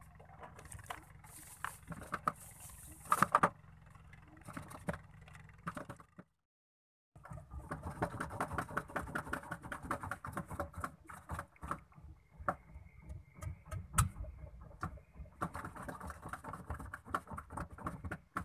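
Small boat engine running, broken by about a second of silence six seconds in.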